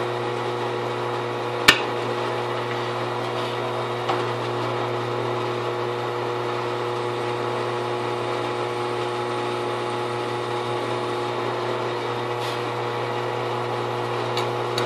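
Drill press motor running steadily with a few steady hum tones as a countersink bit cuts a screw-head recess in a thin metal spacer. A single sharp click about two seconds in.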